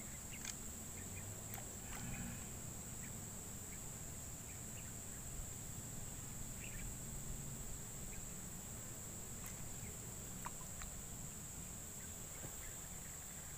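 Steady high-pitched drone of insects, with a few faint short clicks scattered through it.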